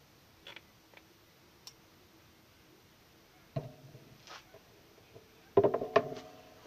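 Steel tin snips being handled and set down on a wooden tabletop: a few faint clicks, then a clack with a brief metallic ring a little past halfway, and a louder cluster of knocks and ringing near the end.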